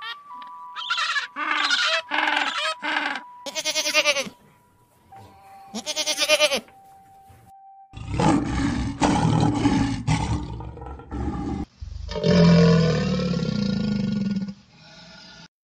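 A penguin calling: a run of short, pitched calls repeated about twice a second, with a pause midway. About eight seconds in, this gives way to deep, rough lion growling, and about four seconds later a louder, deeper roar that lasts about three seconds.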